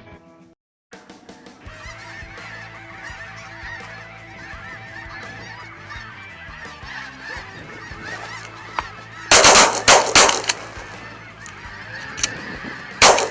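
A large flock of light geese calling overhead in a dense, continuous chorus of honks. About nine seconds in, a quick volley of shotgun shots rings out over the calling, with more shots near the end.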